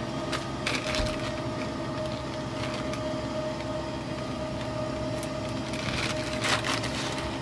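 A steady mechanical hum with occasional clicks and knocks of things being handled over it. The hum cuts in and cuts off abruptly.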